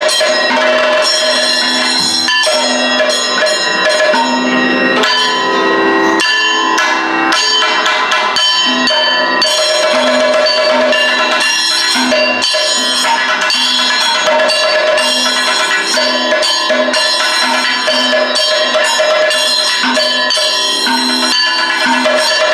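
Kathakali percussion accompaniment: drums beaten in a fast, dense rhythm over the steady ringing of bell-metal cymbals.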